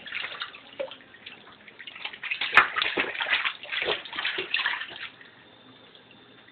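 A baby splashing bathwater with its hands in a sink: a run of irregular splashes, loudest around the middle, dying away over the last second or so.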